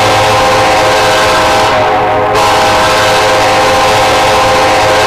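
Locomotive air horn of NS 4001 sounding a loud, steady multi-note chord during a horn test. The blast dips briefly about two seconds in, then sounds again, with a steady low hum underneath.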